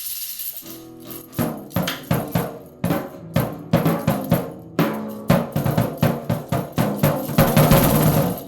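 Amateur rock band starting to play together. A steady high hiss gives way to a held guitar or bass note, then drums come in with uneven hits over the chords. It is loose and clumsy playing that listeners call rock or punk but also say sounds like shit.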